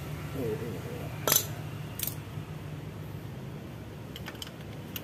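Pliers clinking against metal around a motorcycle engine while hoses are being worked loose: a sharp metallic click just over a second in, another under a second later, and a few faint ticks near the end, over a steady low hum.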